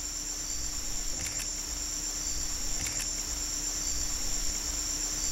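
Steady, unbroken high-pitched chorus of insects chirring, with a faint low hum beneath and two faint double clicks.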